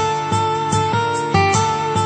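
Intro music: a melody of plucked notes, about three a second, over held tones.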